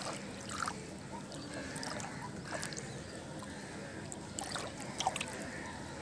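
Hands sloshing and groping through shallow muddy water, with several short splashes.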